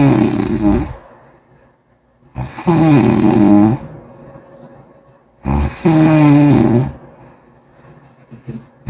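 A person snoring loudly in a steady rhythm: the end of one snore in the first second, then two full snores about three seconds apart, each lasting well over a second with a pitched, buzzing tone.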